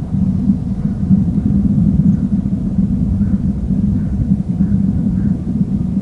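A steady low rumble, a little louder from about a second in.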